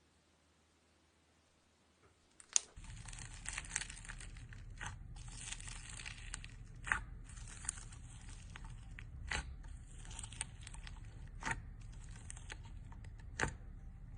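Slime being stretched and squeezed by hand: a sticky crackling with a sharp pop about every two seconds. It starts about two and a half seconds in, after near silence.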